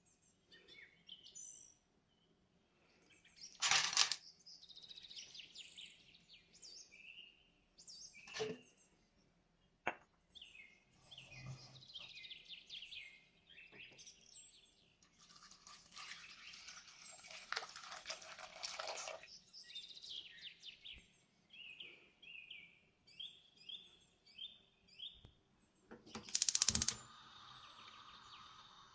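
Birds chirping in the background, with several sharp knocks (the loudest near the start and near the end) and a few seconds of scratchy rubbing about midway.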